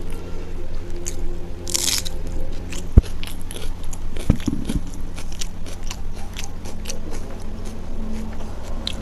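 Close-miked chewing and wet mouth noises of a person eating rice and curry by hand, with small clicks throughout and a sharp knock about three seconds in.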